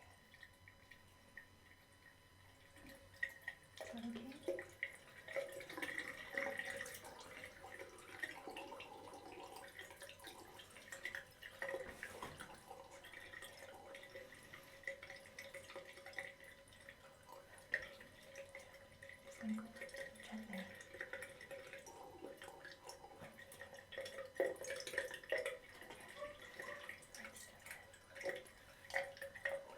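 Water trickling and dripping as a cut is rinsed out, with irregular small drips and splashes.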